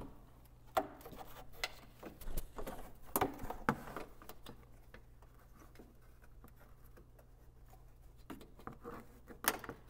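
Rubbing, scraping and scattered clicks of a hand and arm working behind a plastic fender liner, feeling for a hidden headlight bolt. A few sharper knocks stand out, about three seconds in and near the end.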